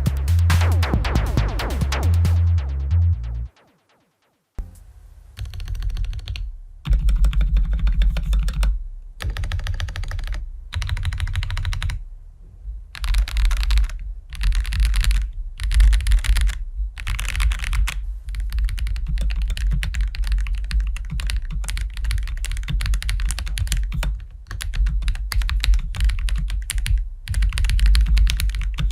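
Fast typing on a Hubatu F75 mechanical keyboard, dense runs of key clicks in bursts with short pauses. Electronic music plays for the first few seconds, then cuts off, and the typing starts about a second later.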